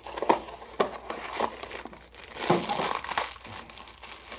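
A small blind-box toy package being torn open by hand: cardboard and plastic wrapping crinkling and crackling in irregular bursts, thickest a little past halfway.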